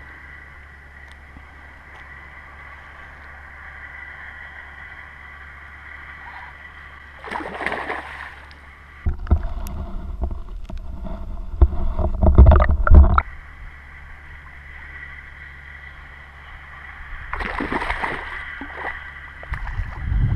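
Water splashing and gurgling around an action camera's waterproof housing as it is dipped into a river, with a loud few seconds near the middle of muffled underwater rumbling and sharp knocks, and further splashing later on.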